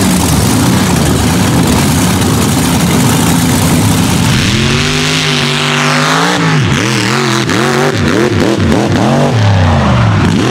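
A steady, noisy rumble for about the first half. Then a mega mud truck's engine at full throttle takes over, its pitch rising and dropping again and again as the truck races over the mud track.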